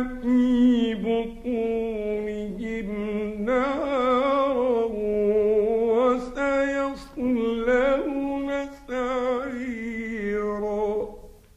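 A solo male Quran reciter chanting in long, ornamented held notes, with brief breath pauses. The voice fades out near the end.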